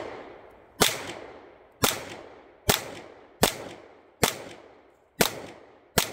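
Pistol shots in slow, steady aimed fire: seven sharp reports, about one a second, each trailing off in an echo.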